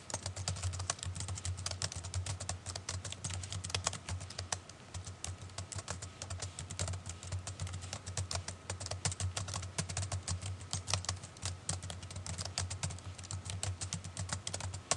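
Typing on a computer keyboard: a continuous run of quick key clicks as a sentence is typed, over a low steady hum.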